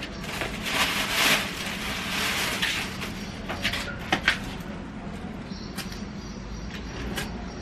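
Plastic shopping bag rustling as things are taken out of it, then a few sharp clicks and taps as a milk carton is cut open with a knife over a plastic bowl.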